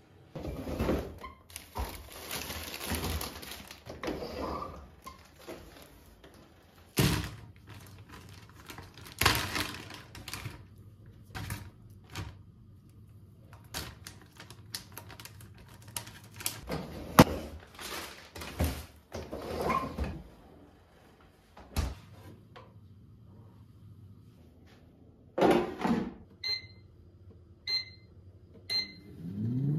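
Kitchen handling sounds: a refrigerator door and drawers opening, clunks and the rustle of a plastic freezer bag. Near the end an air fryer's touch panel beeps three times, and its fan starts to whir up right at the close.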